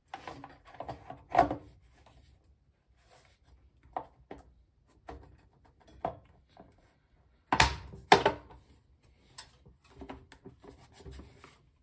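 Cover being fitted back onto a Predator 212 small engine by hand: scattered knocks, clunks and rubbing, with the two loudest clunks close together a little past the middle.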